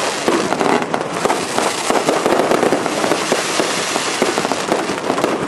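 Aerial fireworks display: a dense, continuous run of crackling pops and bangs as shells burst overhead.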